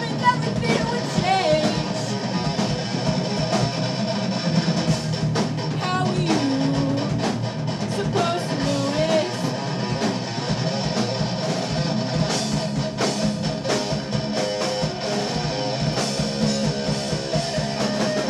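Rock band playing a song: electric guitar, bass guitar and drum kit, with a sung vocal line and frequent cymbal hits.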